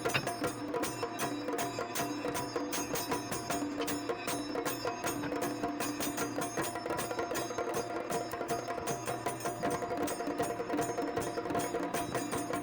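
Percussion music: rapid, steady drum strokes with ringing held tones over them.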